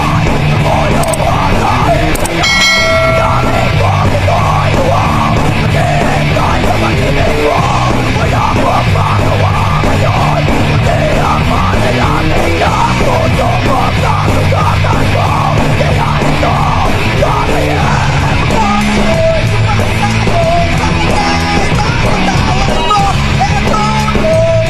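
Loud rock-style channel intro music with electric guitar, playing steadily.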